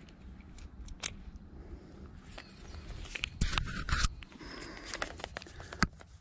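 Handling noise from hands working on a hooked catfish: scattered small clicks and scrapes, with a louder cluster of knocks about three and a half to four seconds in.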